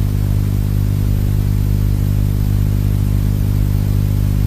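A steady, loud low hum with a stack of overtones that does not change at all. It is typical of electrical hum in an old tape transfer.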